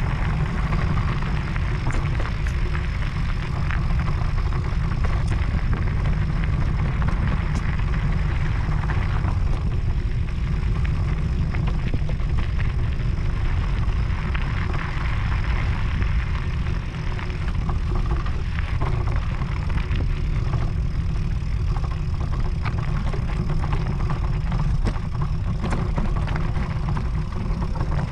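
An e-mountain bike riding a gravel track: tyres crunching over loose stones, with a steady low rumble of wind on the microphone and scattered clicks and rattles from stones and the bike.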